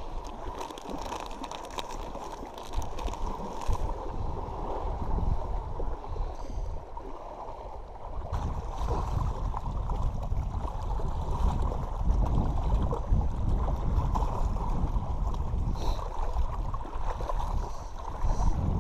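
Wind buffeting the microphone in uneven gusts, over small waves lapping and gurgling against a rocky shore. For the first few seconds a plastic bait packet crinkles as it is handled.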